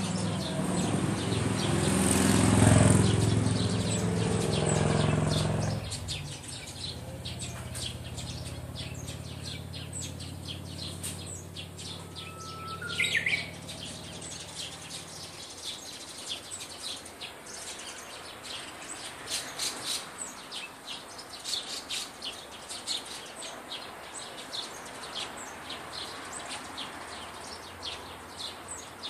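A motor vehicle passes in the first few seconds, loudest about two to three seconds in. About twelve seconds in, a Japanese bush warbler sings its song once: a long held whistle, then a quick higher phrase. Short high chirps of other small birds run throughout.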